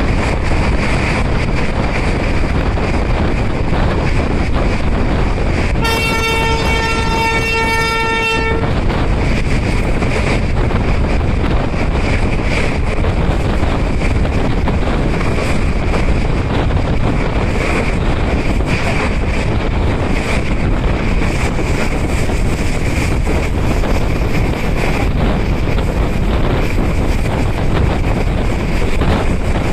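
Locomotive horn sounding one long blast of about three seconds, a single steady note, over the steady rumble and wind noise of a running passenger train.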